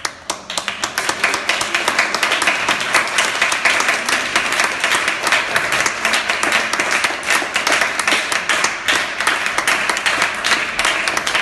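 Audience applauding: dense, even clapping that breaks out suddenly and fills in within the first second.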